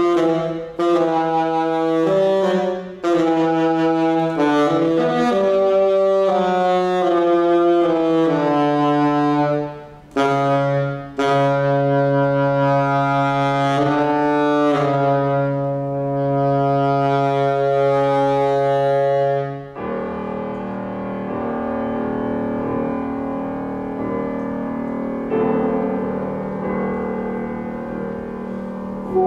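Classical saxophone playing quick runs and leaps, then settling on a long low held note. About 20 seconds in the saxophone stops and a softer passage of held chords carries on.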